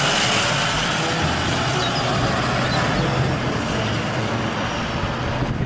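Shuttle bus driving past close by and pulling away down the street: steady engine hum with road noise, easing off slightly as it moves away.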